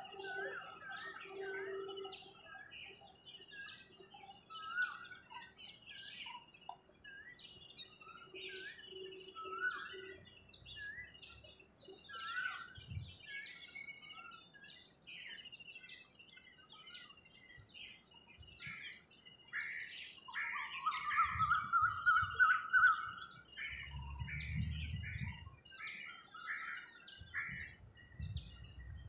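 Many birds chirping and calling together in a dawn chorus of short, overlapping chirps and whistles. About two-thirds of the way through a rising trill stands out, followed by a run of repeated notes.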